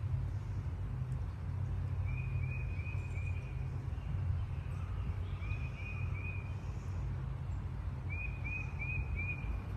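A songbird singing short phrases of four or five quick, slurred whistled notes, repeated every few seconds, over a steady low rumble.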